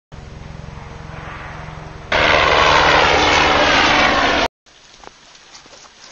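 Propeller aircraft engine droning overhead. The drone jumps much louder about two seconds in and cuts off abruptly a couple of seconds later. Faint footsteps follow near the end.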